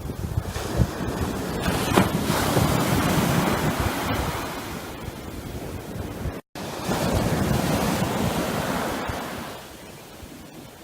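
Ocean waves breaking and washing up the beach, with wind buffeting the microphone. The surf swells and eases, and the sound cuts out for an instant about six and a half seconds in.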